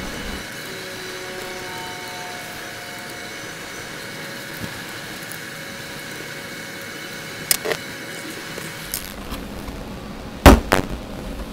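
Small hard parts and tools being handled while an RC crawler chassis is bolted together: a couple of light clicks, then two sharp knocks near the end. A steady electronic hiss with a faint whine runs underneath; this is the camera's static fault.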